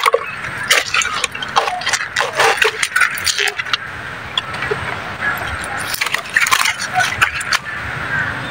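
A rapid, irregular run of sharp clicks and rattles in two bursts, the first through the opening few seconds and the second about six seconds in, over a steady hiss.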